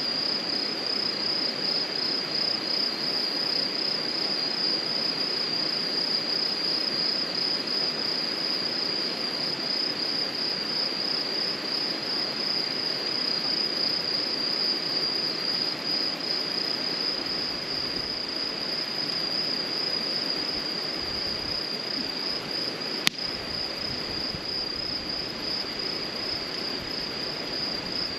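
Crickets trilling steadily, a continuous high pulsing chorus. About 23 seconds in there is a single sharp pop.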